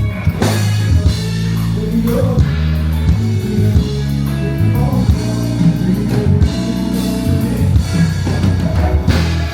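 Loud band music over a sound system at a concert sound check: a heavy bass line of held notes, with drums and guitar.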